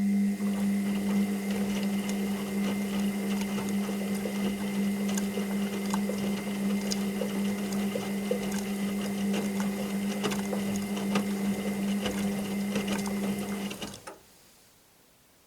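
Washing machine's drum motor running with a steady hum, a scatter of small clicks and rattles over it as the load turns, then stopping abruptly about 14 seconds in.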